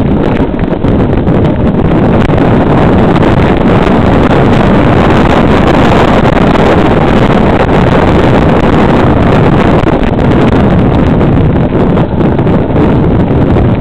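Wind buffeting the microphone of a camera carried down a dirt trail on a mountain bike: a loud, steady rush of noise with no break.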